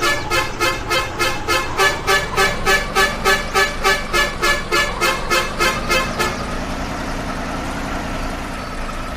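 A horn-like beeping tone repeating in rapid, even pulses, about three to four a second, that stops about six seconds in, leaving a steady rushing noise.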